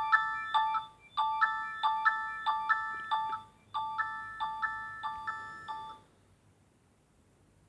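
Nokia N70 ringtone: a short melody of quick, clear notes, about four a second, repeated in phrases with brief pauses, which stops about six seconds in.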